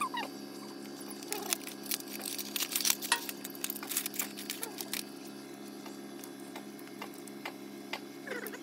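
Metal clinks and taps of hands and tools working on a dismantled tractor engine: a dense run of sharp knocks in the first half, then occasional single clicks, over a steady low hum.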